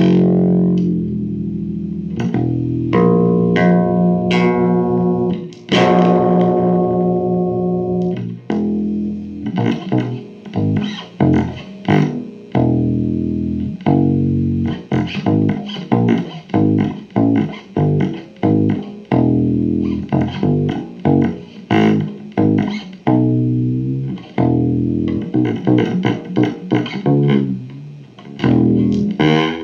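Guitar music with a bass guitar, played through effects. It opens with long ringing notes, then a steady run of short plucked notes begins about a third of the way in.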